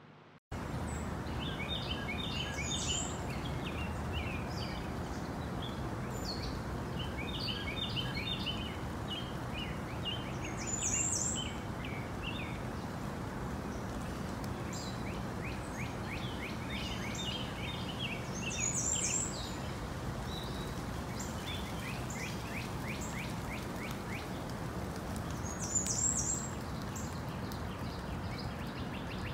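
Outdoor ambience of small songbirds twittering over a steady background hiss, cutting in suddenly about half a second in. A brighter high call repeats four times, about every seven to eight seconds.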